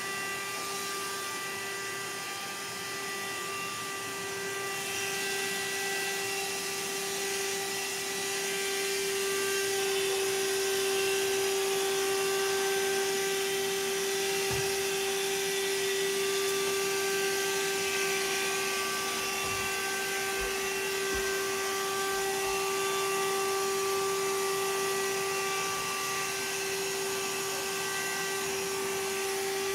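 Vacuum cleaner running steadily: a constant motor whine over a rushing hiss, with a few faint knocks a little after the middle.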